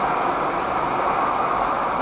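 Steady road-traffic noise, an even rumble and hiss of passing vehicles heard through a dashcam's microphone, muffled and cut off in the highs.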